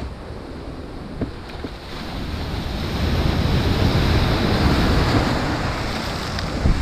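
A sea wave breaking against the foot of a stone jetty: the rush of surf builds from about two seconds in, is loudest around four seconds, then eases as the foam washes back over the rocks.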